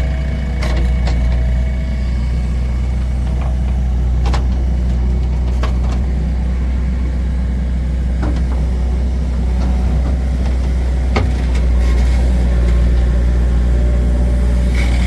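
Heavy diesel engine running steadily with a strong low hum, with a few sharp clicks and knocks scattered through it.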